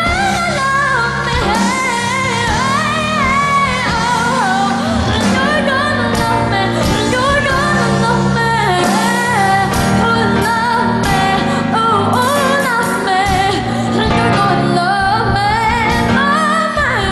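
A boy's high voice singing a song with vibrato into a microphone, over an instrumental backing track or band.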